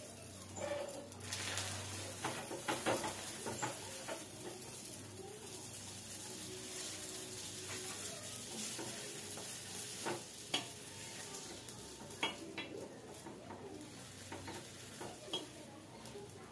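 Burger buns sizzling in ghee on a flat griddle (tawa) over a gas flame as they toast crisp, with a few sharp taps and scrapes of a metal spatula against the pan.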